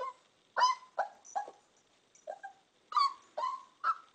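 Puppy whimpering in short, high yelping whines, about eight in a row with a pause in the middle, as it hesitates to go down the stairs.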